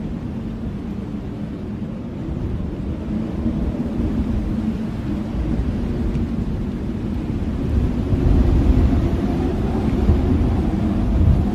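Blizzard wind blowing in a deep, rumbling rush, rising into a stronger gust about two thirds of the way through.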